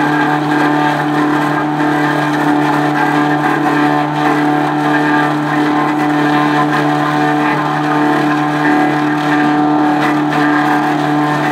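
Posch Schalprofi 500 debarking machine running steadily, a constant drone with a strong low tone and a stack of higher overtones that hardly varies.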